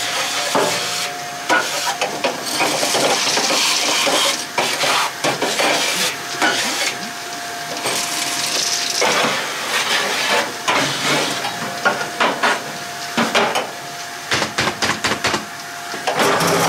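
Kärcher vacuum cleaner running with a steady whine and rushing suction. Its nozzle rattles, clicks and scrapes against the steel inside of a pellet barbecue as it sucks out ash and debris, with the clicks coming thicker near the end.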